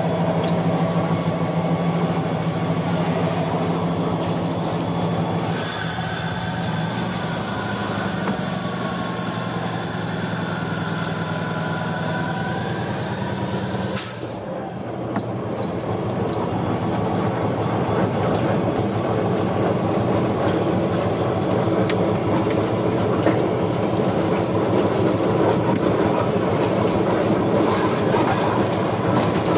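Inside the cab of a moving diesel locomotive: the engine runs steadily. A loud hiss of air starts about five seconds in and cuts off sharply some eight seconds later. After that the wheels rumble and clack over the rail joints.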